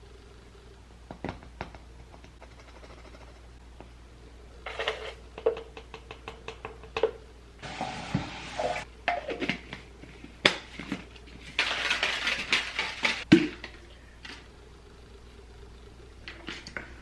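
Powdered pre-workout being mixed in a plastic blender bottle: scattered clicks and taps of the scoop, lid and bottle, with two short bursts of hiss, one about eight seconds in and a louder one about twelve seconds in.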